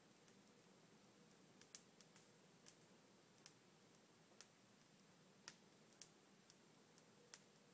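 Near silence broken by about a dozen faint, sharp, irregularly spaced crackles from a firework burning as a tall column of sparks.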